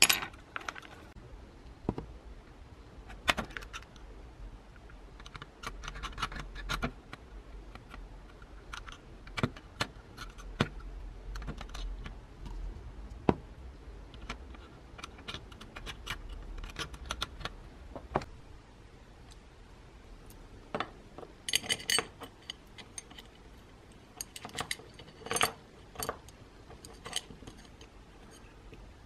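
Small plastic gears and metal housing parts of a vintage mixer's gearbox handled and fitted together by hand: scattered clicks and light clatter, with a louder run of clinks about two-thirds of the way through.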